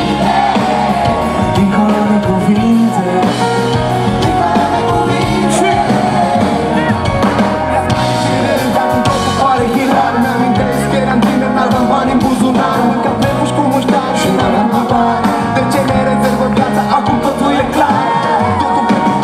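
Live pop band playing over a PA, with a male lead singer and a female singer over a steady drum beat.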